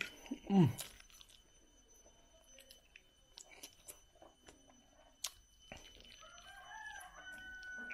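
A rooster crowing near the end, over small clicks of fingers in rice against a metal plate. About half a second in there is a short, louder sound sliding down in pitch.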